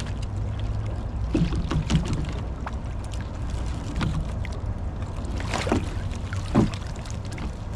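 Steady low hum of a boat's idling motor, with scattered clicks and knocks as a wire crab pot full of blue crabs is handled. A louder clatter comes near the end.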